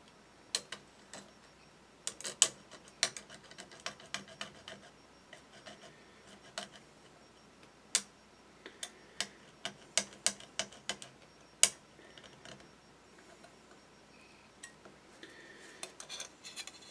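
Irregular sharp clicks and light scratching of a small hobby cutting tool on a plastic model kit fuselage half, cutting away a small nub of plastic.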